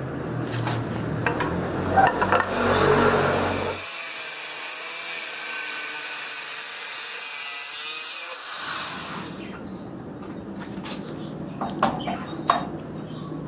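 Abrasive cut-off disc grinding through a rusted steel hex nut clamped in a bench vise, a steady high whine with a hiss of grinding from about two and a half seconds in until about nine seconds. Before and after it, light knocks and clicks as the metal nut is handled.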